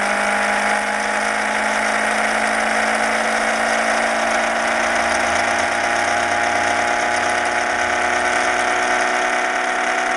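Homemade Thomas-configuration pulse motor (two coils 180 degrees apart firing at a magnet rotor) running at speed on 19 volts, around 4,400 rpm. It makes a steady electric whine with several held tones over a mechanical whir.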